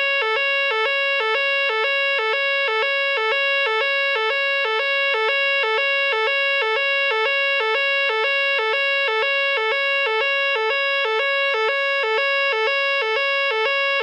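Nugelec fire alarm sounder giving its evacuation signal: a loud two-tone note that alternates between a higher and a lower pitch about twice a second and repeats steadily.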